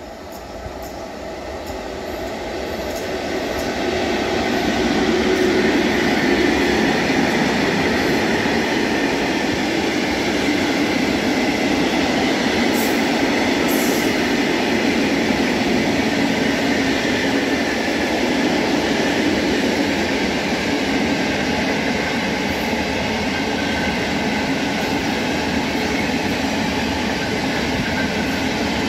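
Freight train of tank wagons hauled by a Škoda Class 182 electric locomotive passing close by. The rumble builds over the first few seconds as the train approaches, then the loaded tank wagons roll past with a steady rolling noise, with a couple of brief high clicks about halfway through.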